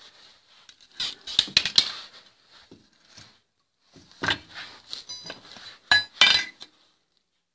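Steel parts clanking and scraping on a concrete floor as a piece of steel channel is handled: a flurry of knocks about a second in, more clanks around four seconds and again near six seconds, with a brief metallic ring in between.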